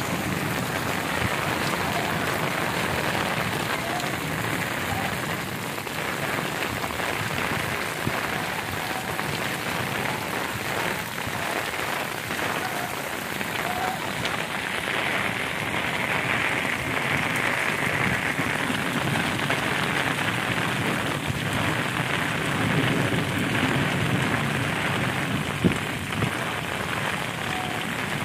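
Heavy rain falling steadily on a flooded street, a continuous hiss of rain on water and wet ground. A single brief sharp knock near the end.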